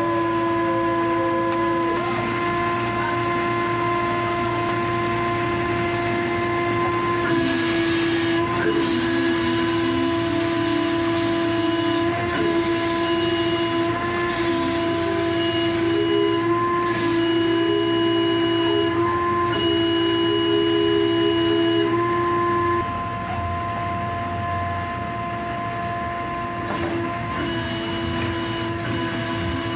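Deck machinery on a fishing boat during tuna unloading, running with a steady whine of several tones that wavers in pitch now and then. The whine drops in level about three-quarters of the way through.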